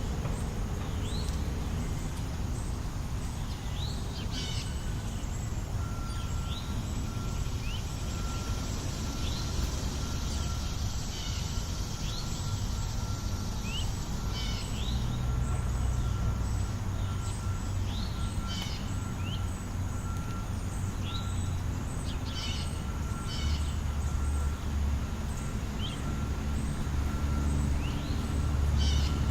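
Birds chirping again and again, short rising chirps, over a steady low rumble of road traffic that grows louder near the end. A faint, steady high tone starts a few seconds in.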